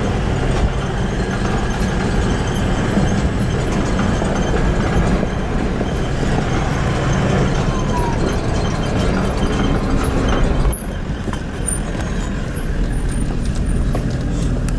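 Ute driving, a steady run of engine, tyre and wind noise with a strong low rumble; the sound turns a little duller about eleven seconds in.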